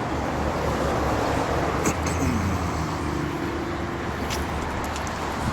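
A motor vehicle engine running close by with a steady rumble, its pitch falling briefly about two seconds in.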